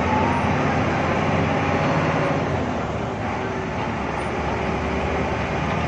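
Hino AK8 bus's diesel engine running under way, heard from inside the front of the cabin, over a steady hiss of tyres on a wet road. The engine note eases a little about halfway through.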